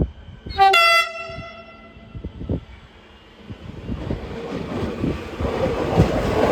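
Siemens Nexas electric train's horn gives one short blast about half a second in, ringing on briefly. From about four seconds in the train's running noise and wheel clatter on the rails build up as it pulls out.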